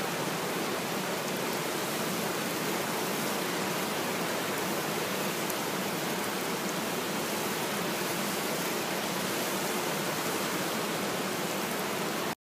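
Steady rushing of flowing water, an even unbroken hiss that cuts off abruptly near the end.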